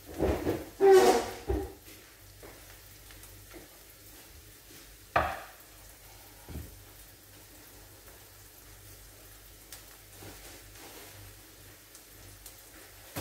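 Onions frying in a pan with a faint steady sizzle, broken by a quick clatter of metal pots and utensils in the first two seconds and a single sharp clank with a short ring about five seconds in.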